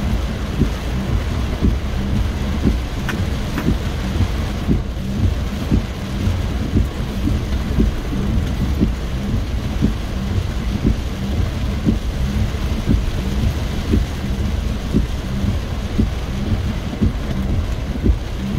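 Heavy rain drumming on a car's roof and windshield, heard from inside the cabin as a dense patter of taps over a steady low rumble.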